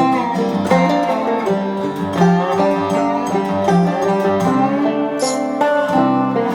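Background music: acoustic guitar and banjo playing a country/bluegrass-style tune with a steady rhythm.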